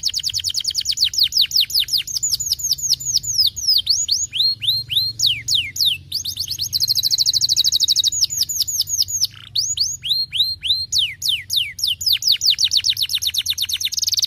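Domestic canary singing a long, continuous song of repeated phrases: rapid strings of downward-sweeping whistled notes, broken about halfway through by a fast, even trill.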